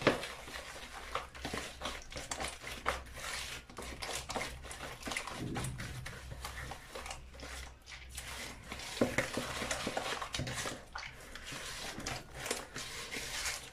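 Beaten eggs and icing sugar being mixed by hand in a large bowl: fingers working through the runny mixture, with many short irregular clicks and taps against the bowl.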